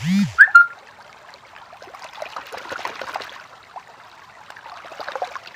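Shallow stream trickling over rocks, its hiss swelling and easing, with a couple of sharp handling knocks about half a second in.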